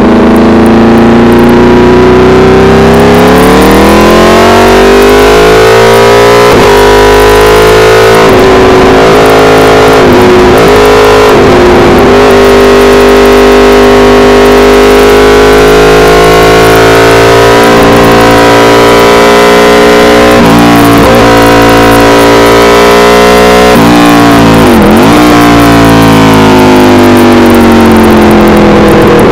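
Aprilia RSV4 Factory's V4 engine through an SC Project CRT exhaust at track speed, heard from a camera at the tail, very loud. The note climbs over the first few seconds, holds high with several quick dips in pitch at gear changes, drops sharply and recovers about 25 seconds in, and falls away near the end.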